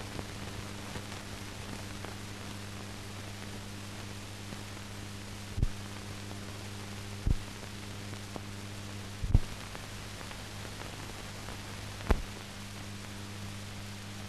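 Blank soundtrack of a silent film transfer: a steady low electrical hum and hiss, broken by a few sharp clicks.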